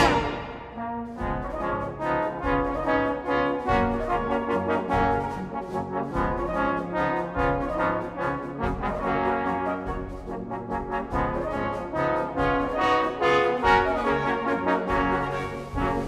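Trombone music: a melody of short, quick notes played on trombone.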